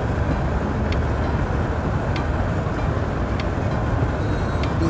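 Steady road and engine rumble heard inside a moving vehicle's cabin, with a faint tick about every second and a quarter.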